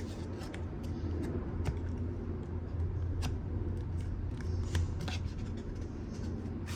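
Basketball trading cards and their packaging being handled and opened by hand: a run of small, irregular clicks, snaps and scrapes over a steady low hum.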